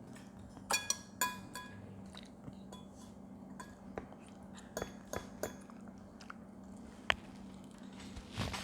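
Eating utensils clinking and tapping against dishes during a meal, a quick cluster of ringing clinks about a second in, then scattered lighter taps and one sharp click near the end, with quiet chewing.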